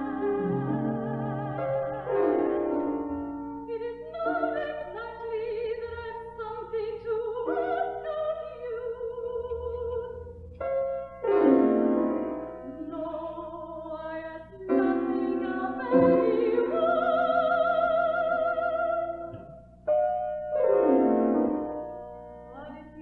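A classical female voice singing an art song with vibrato over piano accompaniment. Piano chords are struck anew several times and ring out under the held notes.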